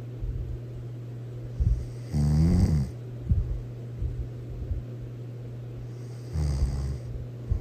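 A person snoring loudly: two long snores, one about two seconds in and another near the end, over a steady low hum.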